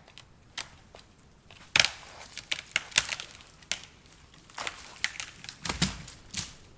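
An irregular series of sharp cracks and crunches, with a heavier dull thump near the end.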